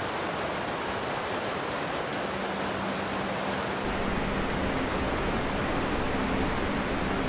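Rushing mountain stream tumbling over rocks: a steady, loud whitewater rush that turns deeper about four seconds in. A faint steady low tone runs under it from about two seconds in.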